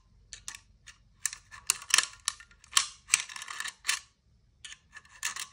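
Irregular light clicks and short scrapes as a flathead screwdriver pushes Glock magazine spring coils back into the magazine body, metal tapping and rubbing against the magazine and its extension.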